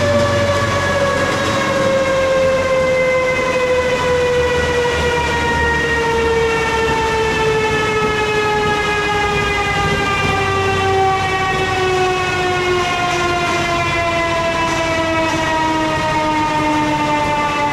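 Chassis dyno drum and a dirt bike's rear wheel spinning down after a pull, giving a whine that falls slowly and evenly in pitch, over a low rumble.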